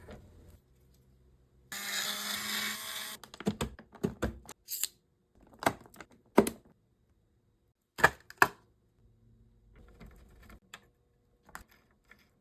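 Computer parts being handled and fitted together: a brief whir of about a second and a half, then a string of sharp plastic and metal clicks and knocks, the loudest a pair about half a second apart near the middle.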